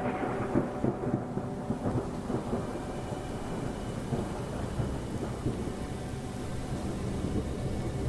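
Slow ambient background music with sustained low tones.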